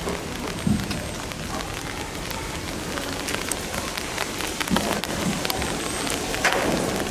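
Steady rain falling, with many separate drops ticking on hard surfaces.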